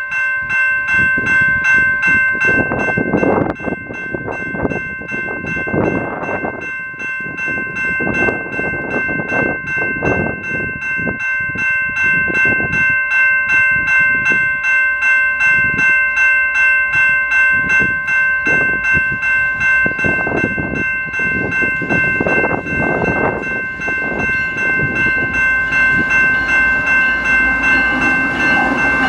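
Railway crossing warning bell ringing steadily with an even beat, while Canadian Pacific GE diesel locomotives running light approach and pass the crossing near the end.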